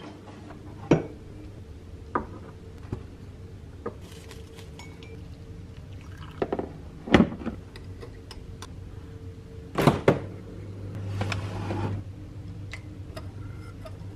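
Kitchen clatter: a dishwasher drawer pulled open, crockery clinking, and a metal teaspoon clinking against a sugar pot and a ceramic mug while stirring. Scattered sharp clinks and knocks, the loudest about seven and ten seconds in, over a steady low hum.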